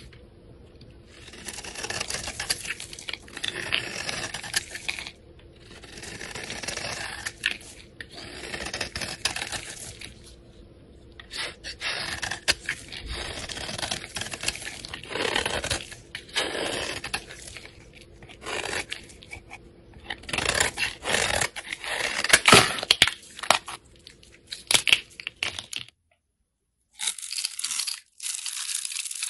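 A utility-knife blade shaving and carving a hand-held bar of soap. It makes a series of scraping strokes, each a second or two long, with short pauses between them. In the latter part there are several sharp cracks as pieces break away.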